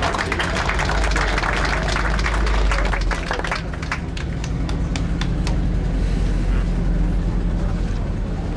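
1942 Ford GPA amphibious jeep's four-cylinder flathead engine running low and steady as it drives past. Scattered clapping and crowd noise over the first three seconds or so.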